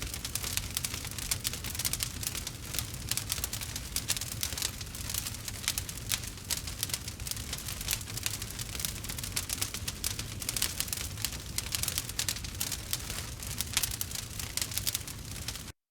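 Campfire crackling, with a rapid, irregular stream of small snaps and pops over a low rumble. The sound cuts off suddenly just before the end.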